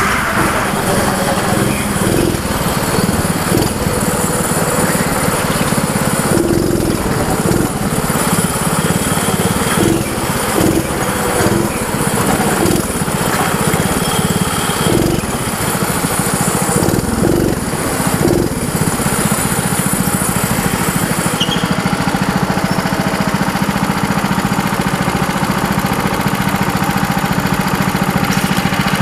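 Junior go-kart's small petrol engine running at speed as the kart laps the track, heard loud and close from an onboard camera, with bumps and changes in pitch through the corners. It goes steadier over the last few seconds as the kart slows.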